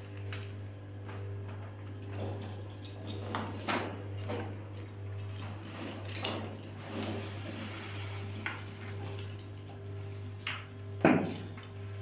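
Scattered light clicks and knocks of a lory's feet and beak on its wire cage bars, wooden perches and hanging toys as it clambers about, with a louder knock near the end. A steady low hum lies underneath.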